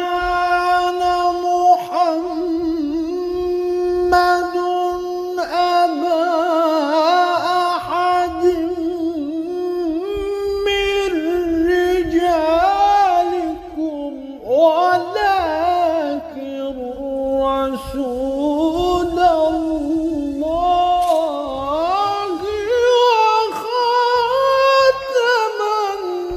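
A man's solo voice in Arabic devotional chanting. It opens on one long steady note held for about five seconds, then moves through winding, ornamented melodic runs.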